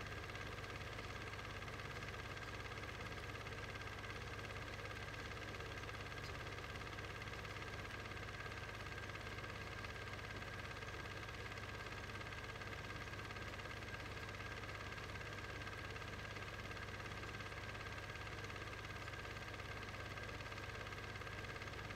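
Steady, unchanging hum and hiss with no events: the background noise of transferring a silent Standard 8 home movie, with no sound of the racing cars.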